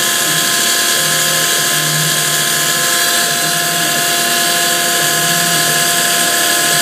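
Grizzly G0704 benchtop milling machine, converted to CNC, with its belt-driven spindle running at 4,500 RPM while a 1/16-inch end mill cuts the tooth profile of a Delrin disc. It makes a steady high whine with a lower hum that comes and goes. The belt drive is a little noisy, which the owner puts down to pulley wobble from pulleys bored oversize.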